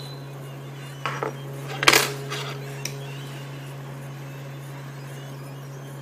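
A few small metal clicks and clinks, the loudest about two seconds in with a short ring, as metal tools work the loosened processor chip off the phone board. A steady low hum runs under them.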